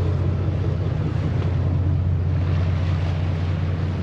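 Fishing boat's engine running steadily under way, a constant low drone, with wind and water rushing past.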